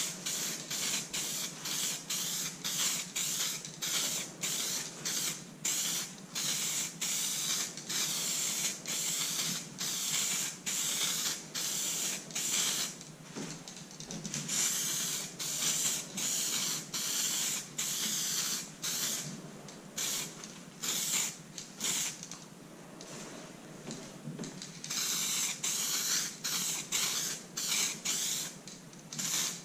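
Aerosol spray paint can hissing in quick short bursts, about one or two a second, with a few longer passes about halfway through and near the end, as red paint is sprayed onto composite vent duct pieces.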